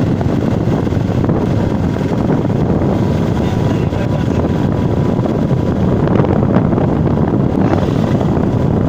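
Steady rumble of a moving open vehicle on the road, with wind buffeting the microphone.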